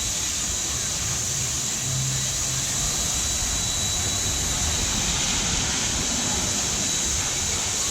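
Steady rushing and hissing of water running down a water slide into its runout, an even noise with no breaks.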